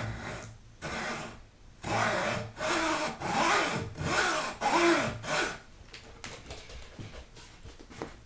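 Hacksaw cutting across a pine board by hand: two slower opening strokes, then a run of quick back-and-forth strokes, about two a second, that stops about five and a half seconds in. A few faint light taps follow.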